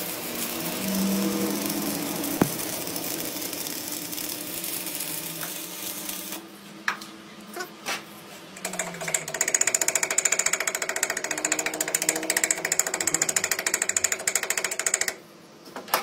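Electric arc welding on a steel shaft held in a lathe chuck. A steady crackling hiss gives way about six seconds in to a quieter spell with a few clicks, then to a fast, even buzzing rattle that stops abruptly near the end.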